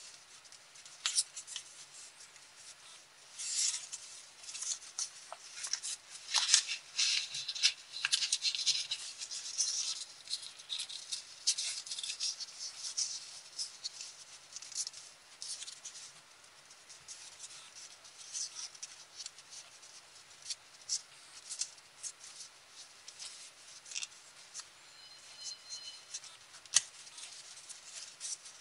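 Colored copy paper being folded and creased by hand: crisp crinkling and rustling with sharp crackles, busiest in the first half and sparser after that.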